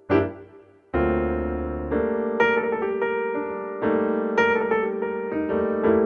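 Piano music: a few single struck notes, then a sustained chord about a second in and a steady run of notes over it.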